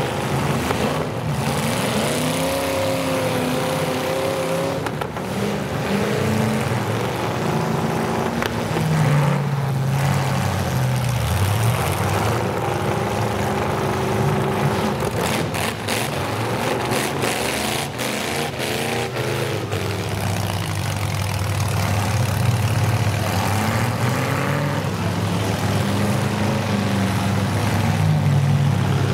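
Several demolition derby car engines running and revving, their pitch rising and falling, with a run of sharp knocks and bangs about halfway through.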